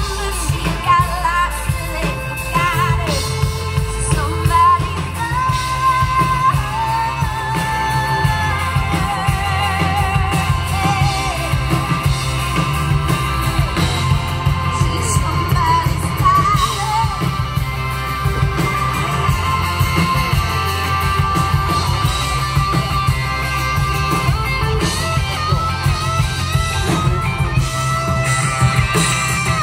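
Live band performance: a woman singing lead over electric guitar and a steady bass line, amplified through a PA.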